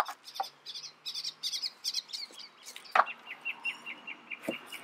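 Birds chirping and twittering in quick high notes, turning into a fast, even trill at one pitch from about three seconds in. A few sharp knocks of handling come at the start, about three seconds in, and near the end.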